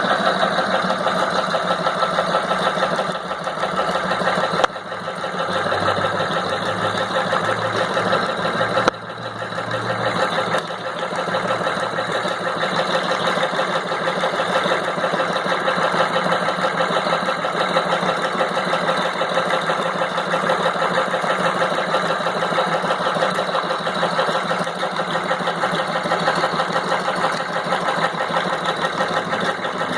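Heavy-duty sewing machine stitching tarpaulin canvas, running steadily at speed with a fast mechanical chatter. It dips briefly about five seconds in and again about nine seconds in, then carries on.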